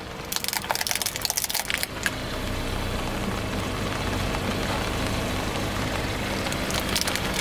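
Car tyre rolling over a row of small toy cars, crunching and cracking them in a dense run of sharp cracks for the first couple of seconds, with a few more cracks near the end. The car's engine runs under it as a steady low hum.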